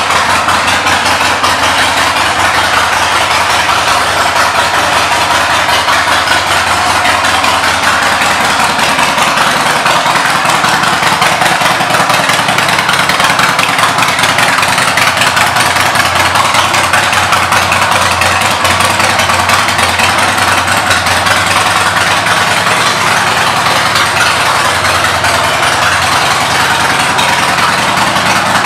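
Harley-Davidson Dyna Wide Glide's Twin Cam V-twin idling steadily through chrome dual exhaust pipes.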